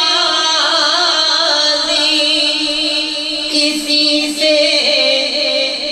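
A man singing a naat into a microphone, holding long notes that waver and turn in ornamented runs.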